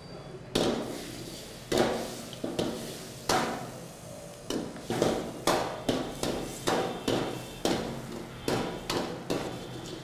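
Metal spatula clanking and scraping against a wok as fried chicken pieces are tossed in sauce, a sharp clank or two every second from about half a second in.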